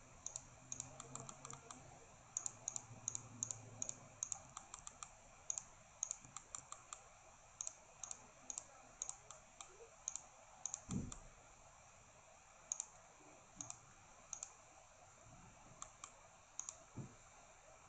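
Faint, irregular clicks of a computer mouse, often in quick pairs, as points are clicked one after another. Two soft low thumps come about eleven and seventeen seconds in.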